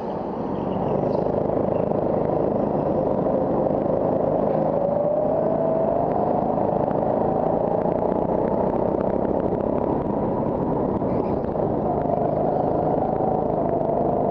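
Go-kart engine running hard, heard from onboard the kart as it laps. Its pitch climbs gradually over several seconds, eases off, and climbs again near the end.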